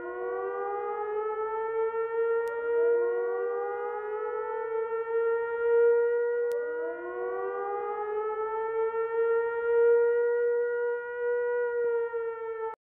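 Siren-like wailing: overlapping tones rise in pitch every couple of seconds over a steady held tone. It cuts off suddenly near the end.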